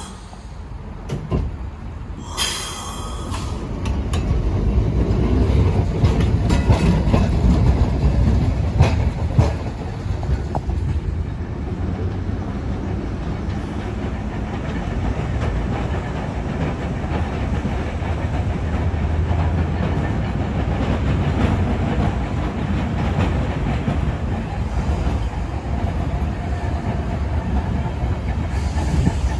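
Heritage electric trams running past on rails: a steady low rumble that swells a few seconds in, with scattered clicks of the wheels over the track and a brief high-pitched burst about two and a half seconds in.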